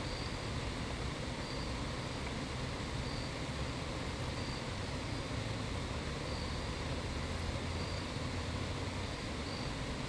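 Steady outdoor background of low rumble and hiss, with an insect giving short high chirps about once a second.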